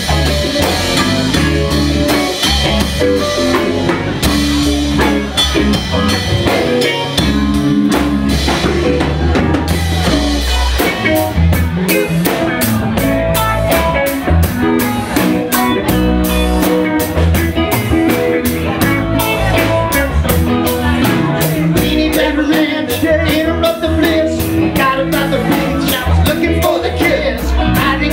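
Live rock band playing: electric guitar over a drum kit, with the drummer keeping a steady run of cymbal strokes from about eleven seconds in.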